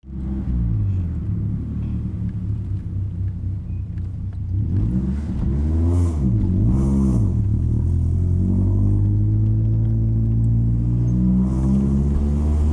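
BMW E36 318ti's inline-four engine idling, then blipped twice in quick succession about halfway through, then held at a higher speed with the revs slowly climbing near the end.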